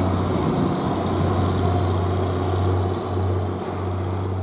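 Small passenger ferry's engine running with a steady low drone as the boat pulls away, over the rushing churn of its propeller wash.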